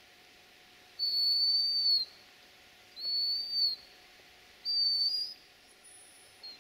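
Three high, steady whistled notes, the first about a second long and the next two shorter, each bending slightly in pitch at its end.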